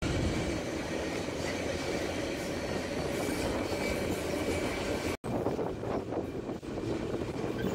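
Freight train rolling along, heard from aboard an intermodal well car: a steady rumble and rattle of the cars with a thin high wheel whine over it. About five seconds in the sound cuts and resumes with more clatter.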